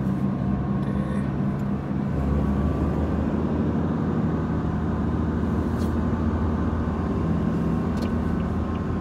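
Steady engine and road noise of a car driving along, heard from inside its cabin.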